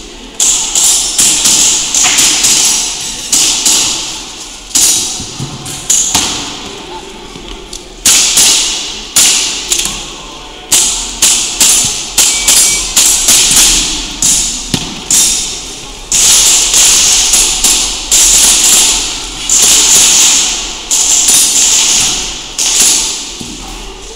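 Gas blowback airsoft pistol, a Tokyo Marui Hi-Capa 5.1 Custom, fired in quick strings of sharp cracks with short pauses between them, each shot ringing on in the hall.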